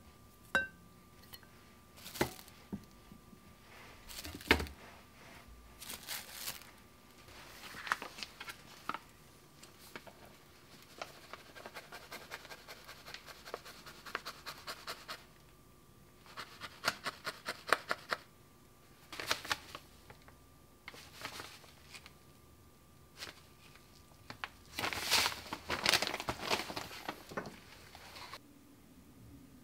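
Kitchen preparation sounds. First a knife chops chocolate, with sharp knocks of the blade on a plastic-wrapped board. Then flour and other powders pour into a glass bowl with a soft hiss, and plastic packets rustle, loudest near the end.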